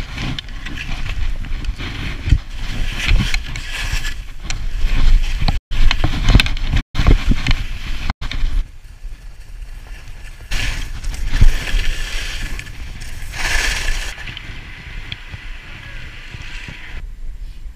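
Skis hissing and scraping over snow on a fast downhill run, with wind buffeting the microphone in a steady low rumble. The sound surges unevenly and cuts out abruptly three times near the middle.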